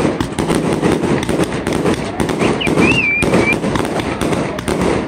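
Multi-shot fireworks cake firing a rapid volley from the ground, a dense run of pops and crackling star bursts without a break. A short wavering whistle rises over it about two and a half seconds in.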